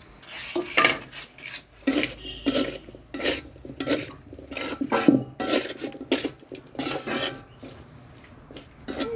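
Metal spatula scraping and clattering against a kadai (wok) as diced pumpkin is stirred, in quick irregular strokes with a brief pause near the end.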